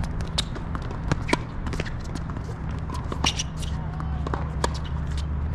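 Tennis on an outdoor hard court: a string of sharp knocks from the ball bouncing and being struck, the loudest about a second in and again past the middle, with lighter footstep taps, over a steady low rumble.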